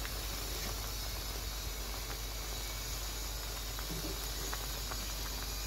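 Cut spinach cooking down in a hot kadai of fish curry, giving a steady, even sizzling hiss with a few faint pops.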